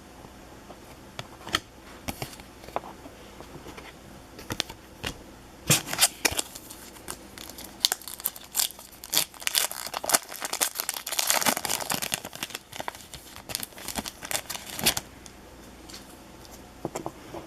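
Plastic wrapper of a baseball card pack being torn open and crinkled by hand: a few light clicks and rustles at first, then about nine seconds of dense crinkling and tearing, heaviest in the middle, before it drops back to a few clicks.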